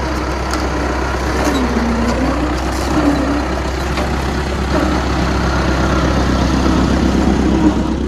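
Old road roller's engine running as the heavy roller drives along the road, its note dipping and then rising again.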